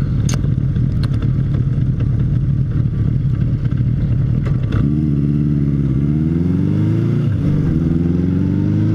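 Motorcycle engine running steadily, then from about five seconds in accelerating through the gears: the pitch climbs, drops back at each of two shifts and climbs again.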